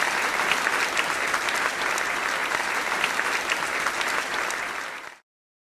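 Dense clatter of many rapid claps at once, like applause, cutting off suddenly near the end.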